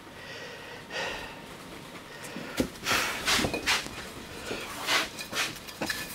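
A man's short, noisy breaths and sniffs through the nose, several in a row, with faint rustles and light knocks as he moves about and handles things.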